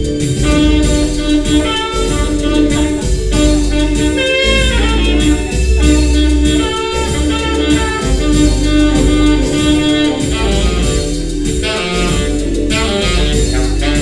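Jazz-style tenor saxophone playing over a deep sustained bass line, with a steady rhythmic pulse underneath.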